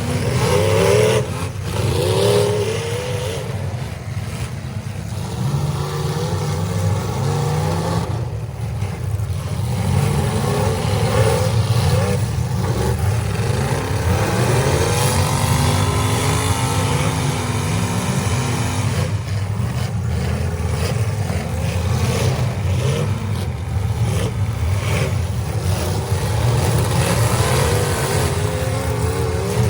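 Several demolition derby cars' engines running and revving at once, their pitch rising and falling unevenly over a continuous low rumble.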